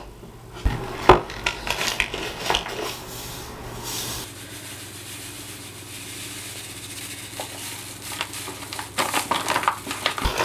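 Granulated sugar poured from a paper bag into a stainless steel pot of water, a steady hiss while the stream runs. Knocks of the pot and bag handling come in the first few seconds, and rustling of the paper bag near the end.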